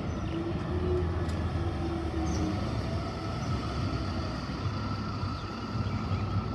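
City route bus engine running with a steady low drone as the bus drives past close by and pulls away along the street.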